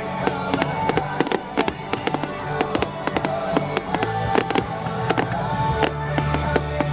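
Fireworks going off in rapid cracks and bangs, many a second, with music playing underneath.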